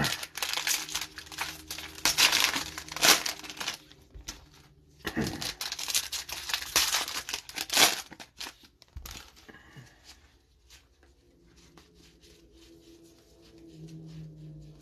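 A trading-card pack wrapper being torn open and crinkled by hand, with two long stretches of tearing and crackling in the first eight seconds, followed by softer rustling and clicks as the cards are handled.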